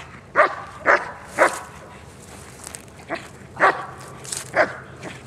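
German Shepherd barking in short single barks: three about half a second apart near the start, then a few more after a pause.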